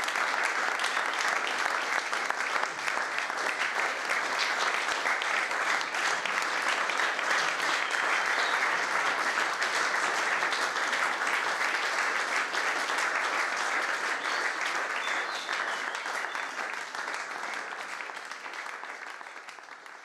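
Audience applauding: many people clapping in a dense, steady patter that fades away over the last few seconds.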